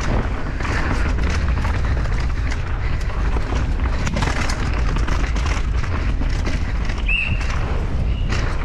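Mountain bike being ridden on a rough trail: wind rumbles on the microphone while the bike rattles and knocks over the ground. A brief high squeak comes about seven seconds in.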